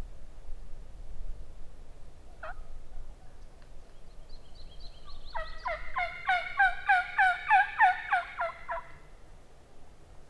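Wild turkey calling: one short call about two and a half seconds in, then a run of a dozen or so quick, falling notes lasting about three seconds.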